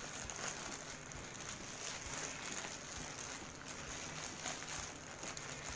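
Clear plastic bag rustling and crinkling in the hands as it is worked open, over a steady background hiss.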